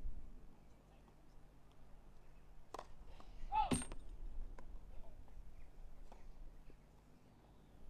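Tennis ball struck twice, about a second apart, on a grass court. The second, louder hit comes with a short cry that rises and falls in pitch.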